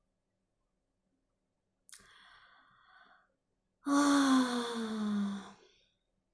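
A woman's audible sigh, a voiced exhale falling steadily in pitch, about four seconds in, after a faint, shorter noise about two seconds in.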